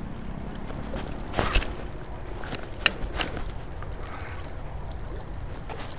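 Steady low wind-and-water noise on the microphone, with a brief louder rustle about a second and a half in and a couple of sharp clicks around three seconds, from the fishing rod and reel being handled.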